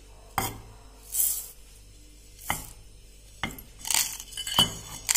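Whole dry spices being tipped into a stainless-steel grinder jar: a few sharp clinks of the bowls against the metal jar, and twice the hissing rattle of seeds pouring in.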